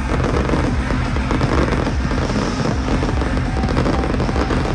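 Electronic dance music playing over a festival sound system with a steady pounding bass beat, and fireworks bursting and crackling over it throughout.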